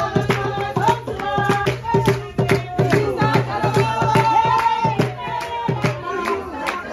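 Music with singing voices over a steady, fast drum beat.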